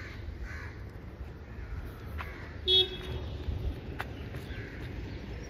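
Street traffic rumble with one brief vehicle horn toot a little under three seconds in, plus a couple of faint clicks.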